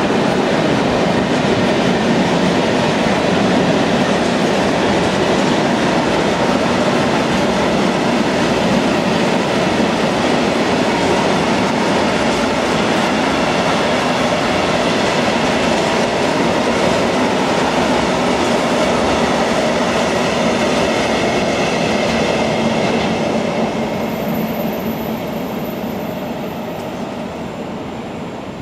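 Long freight train of tank wagons rolling past, the steady noise of its wheels on the rails. It fades away over the last few seconds as the end of the train moves off.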